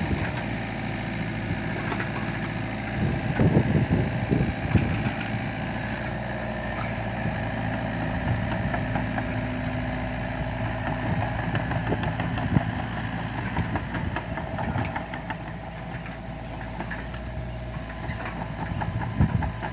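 Mini excavator's diesel engine running steadily, with a cluster of sharp knocks and clanks about three to five seconds in and again near the end.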